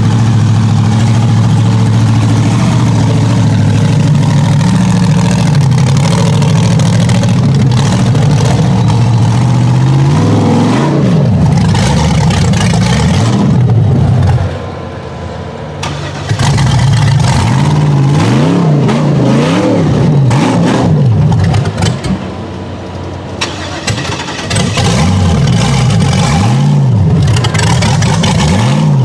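Rock buggy's GM LS V8 engine running steadily at low revs, then revved hard over and over from about ten seconds in, its pitch rising and falling with each blip as the buggy claws up a steep rock chute. The engine drops back twice for a moment between bursts of throttle.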